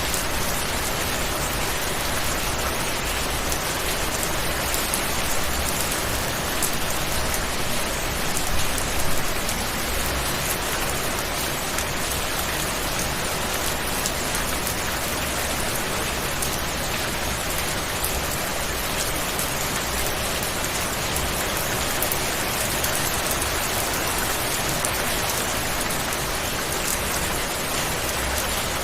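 Steady rain falling, an even hiss of drops on a surface with fine drop ticks throughout and a few slight swells in loudness.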